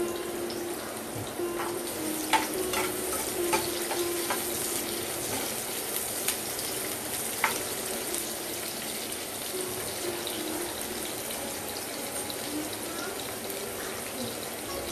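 Freshly added sliced red onions frying in hot oil in a pan: a steady sizzle broken by a few sharp pops, the early stage of frying onions before they brown.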